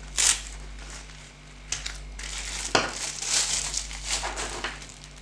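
Nylon knife sheath being handled: short rustling, crinkling scrapes of fabric, with one sharp click a little past the middle.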